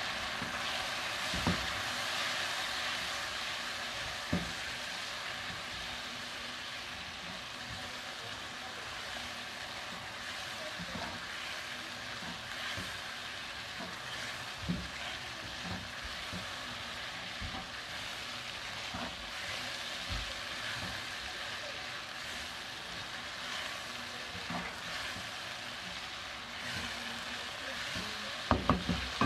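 Chicken liver and gizzards sizzling as they fry in oil in a pan, a steady hiss, while a spatula stirs the spices through and knocks against the pan now and then, with a quick run of knocks near the end.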